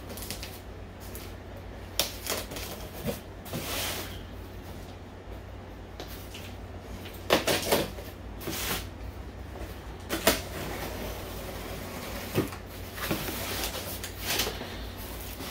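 A cardboard shipping box being opened: a small blade slicing the packing tape, then the flaps being pulled open. It comes as irregular short scrapes, rips and cardboard knocks.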